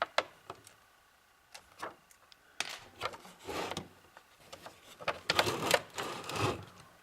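Clicks and short scrapes of a screwdriver and small parts being worked inside a server power supply during disassembly. About five seconds in comes a louder stretch of rubbing and rattling, lasting over a second.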